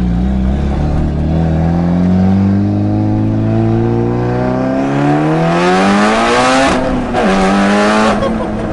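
Turbocharged 4G63 inline-four of a Mitsubishi Lancer Evolution 8 at full-throttle acceleration, heard from inside the cabin. The engine note climbs steadily, faster and with growing intake and turbo hiss in the last seconds, drops sharply at a gear change about seven seconds in, and climbs briefly in the next gear. The revs then fall to a steady note near the end.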